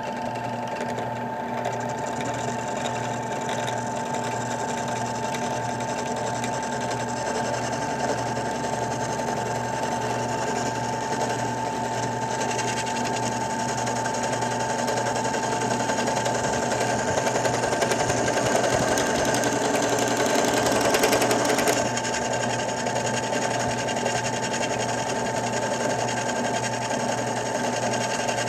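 Bench drill press motor running steadily, spinning a 1/2-inch aluminium tube that is being turned as on a lathe. A louder, harsher cutting noise builds from about halfway through and cuts off suddenly about three quarters of the way in, leaving the steady hum of the machine.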